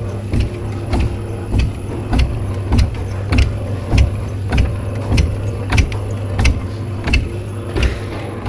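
Cricket bat knocking machine at work: its rounded hammer head strikes the face of a new English willow bat in a steady rhythm, a bit under two knocks a second, over a steady motor hum. The repeated blows press the soft new willow evenly to ready the bat for play.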